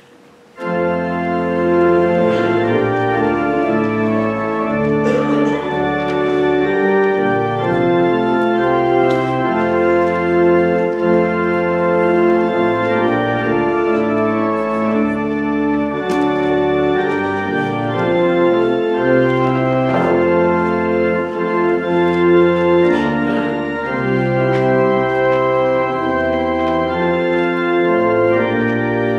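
Church organ starting about half a second in and playing a hymn tune in full, sustained chords that change every second or so.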